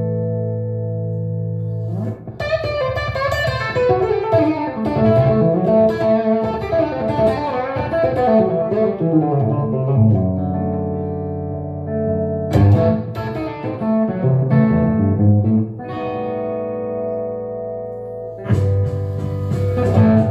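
Electric Telecaster guitar improvising blues: a chord rings out at the start, then quick runs of single notes broken by held, sustained notes, with another fast flurry near the end.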